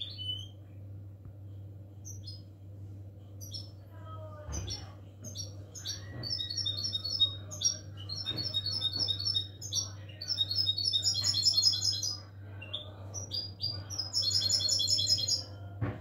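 European goldfinch singing: phrases of rapid, high twittering trills that start about four seconds in and are loudest about eleven seconds in and again near the end, over a steady low hum.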